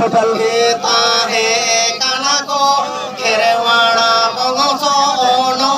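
A man chanting or singing a melody into a microphone, amplified through a loudspeaker, his voice bending and holding notes over a steady held tone.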